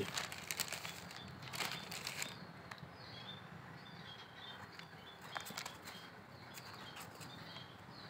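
A baby parrot's faint short chirps, repeated every so often, with a burst of wing flapping and rustling on newspaper in the first two seconds and a few more rustles later.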